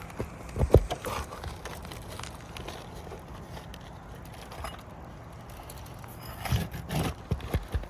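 Metal roof snake knocking and scraping under asphalt shingles as it is worked to break the seal and pry out nails: a few sharp knocks about half a second in, then a cluster of knocks and scrapes near the end.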